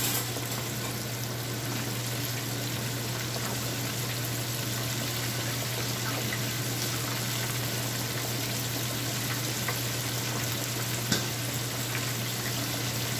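Thin-cut chicken breast frying in hot oil, a steady sizzle, over a steady low hum. A short clink about eleven seconds in.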